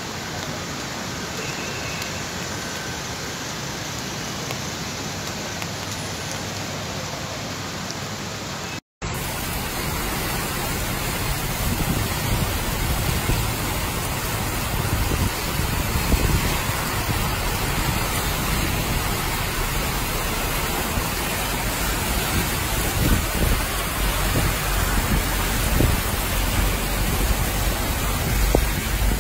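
Heavy rain: a steady hiss, then after a brief cut about nine seconds in, a louder downpour with a deep rumble underneath.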